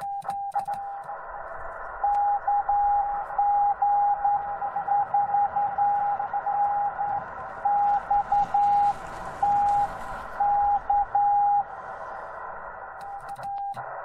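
Morse code from a Yaesu FT-891 shortwave transceiver: one steady beep keyed on and off in dots and dashes over band-limited receiver hiss, a station sending slowly. Sharp clicks with short bursts of the same tone come near the start and again near the end.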